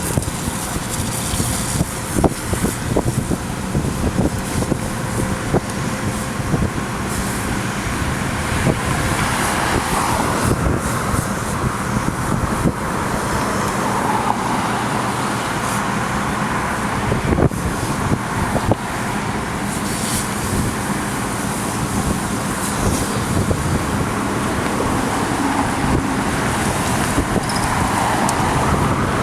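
Motor vehicle noise: a steady engine hum and road rumble with several slow swells, like vehicles passing.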